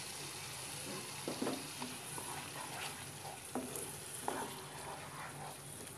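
Tomato paste and onion-ginger-garlic paste sizzling softly in oil in a nonstick karahi, with a wooden spatula scraping and knocking against the pan several times as it is stirred.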